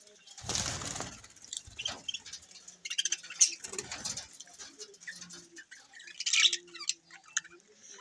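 A flock of budgerigars chattering, with many short high chirps and calls, the loudest a little past three seconds and again past six seconds. Two short rushes of noise come in, about half a second in and again near four seconds.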